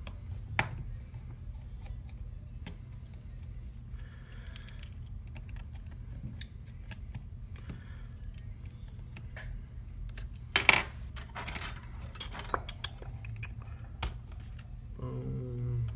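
Small metallic clicks and taps of a tri-point screwdriver working the tiny screws out of an iPhone 7 Plus cable plate and setting parts down, with one louder clatter a little past the middle, over a steady low hum.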